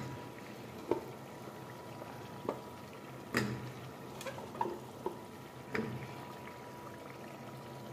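Steel spoon clinking and scraping against an aluminium pressure cooker as potato chunks are turned into the masala, about seven irregular clinks, over a steady low bubbling of the simmering masala.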